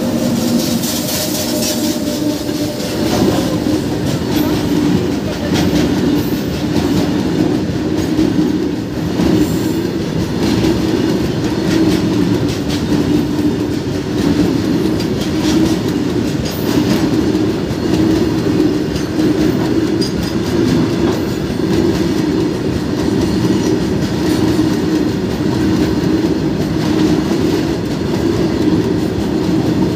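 Long freight train of wagons rolling past behind twin WAG-9 electric locomotives: a steady, loud rumble of wheels on rail with scattered clicks over the rail joints. A steady hum fades out about three seconds in.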